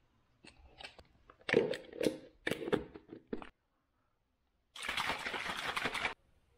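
Plastic shaker bottle being handled with a series of irregular knocks and clicks, then shaken hard for just over a second, the liquid sloshing and rattling inside until it stops abruptly. The bottle holds a pre-workout drink being mixed.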